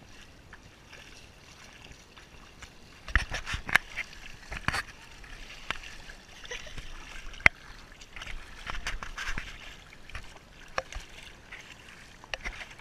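Shallow seawater splashing and sloshing around wading feet, with a scatter of sharp clicks and knocks from about three seconds in.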